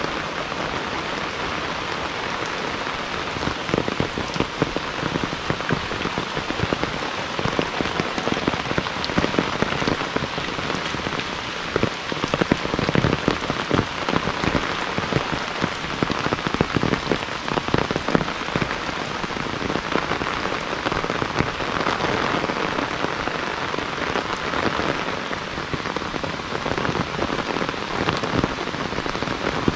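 Heavy rain falling steadily, with many close drops striking hard among the steady hiss.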